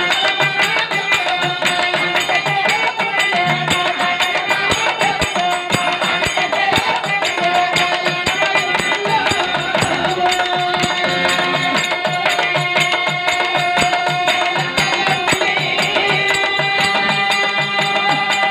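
Live folk music: a hand drum keeping a steady beat under a sustained melodic instrument line.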